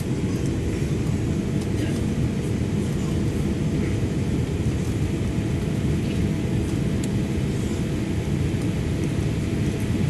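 Steady cabin noise of a Boeing 787 Dreamliner climbing after takeoff, heard inside the cabin: an even roar of the engines and rushing air, low and heavy, with a faint steady hum above it.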